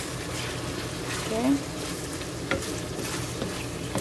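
Onion, garlic and ginger sizzling in hot oil in a wok, stirred with a wooden spatula that scrapes through them, with a few sharp taps of the spatula against the pan.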